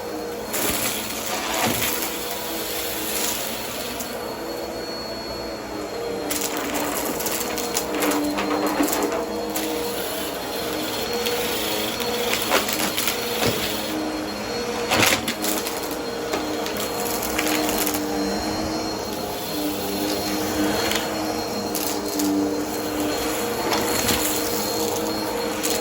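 Vacuum cleaner running steadily over carpet, its motor hum held throughout, with scattered crackles and sharp ticks of crunchy debris being sucked up.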